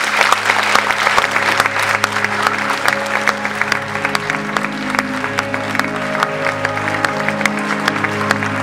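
Audience applauding at the end of a speech, a dense patter of clapping, with music playing under it in steady held notes.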